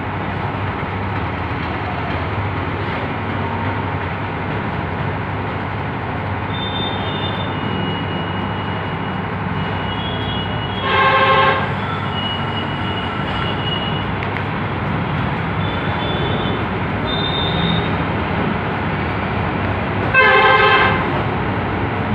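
Two short vehicle horn honks, one about halfway through and one near the end, over steady background noise.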